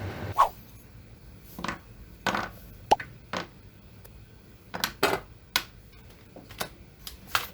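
Small metal parts and tools being picked up and set down on a work surface: about a dozen separate clinks and knocks, the sharpest near the start and about three seconds in. A steady blowing noise cuts off just as it begins.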